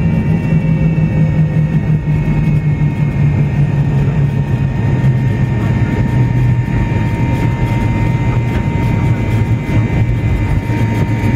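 Cabin noise inside an MD-88 airliner rolling out on the runway after landing: a steady low rumble and jet whine from its rear-mounted Pratt & Whitney JT8D turbofans, with several tones slowly dropping in pitch as the jet slows.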